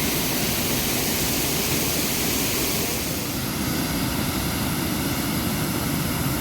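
Steady rush of a waterfall, an even roar of falling water that does not let up, with a slight change in tone about three seconds in.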